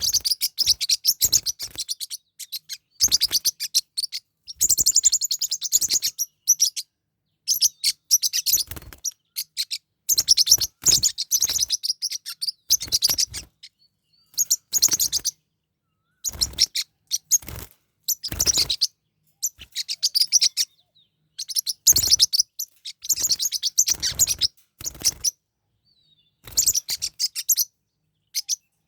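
Forpus parrotlets chattering in repeated bouts of rapid, high-pitched chirps, each bout a second or two long with short pauses between, as the birds squabble.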